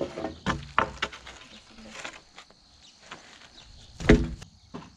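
Wooden knocks and thumps as a long wooden cart shaft is handled: several sharp knocks in the first second, and a heavier, louder thump about four seconds in.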